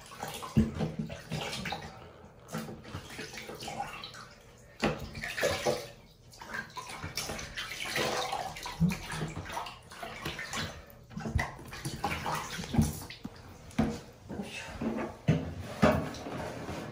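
Water sloshing and splashing in a plastic basin as a wet cat is washed by hand, in irregular splashes with the odd knock.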